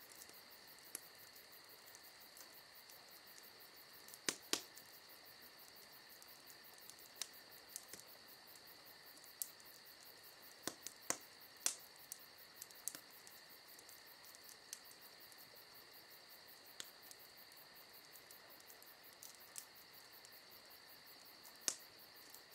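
A faint, steady chorus of crickets and other night insects trilling. Scattered sharp pops break in now and then, the loudest a little over four seconds in, around eleven to twelve seconds, and near the end.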